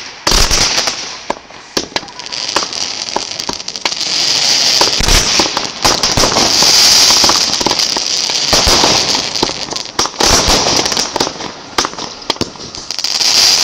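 Firework fountains spraying sparks: a loud, steady hiss full of dense crackling, with a few sharp pops. The hiss swells in the middle and again near the end.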